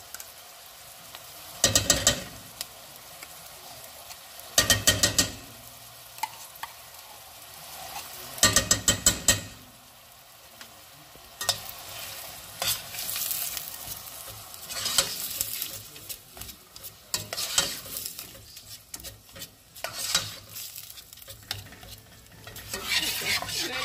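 Tomato paste frying and sizzling in oil with onions in a pot while it is stirred with a spoon. Several short bursts of rapid scraping and knocking of the spoon against the pot come in the first ten seconds, with more irregular stirring after.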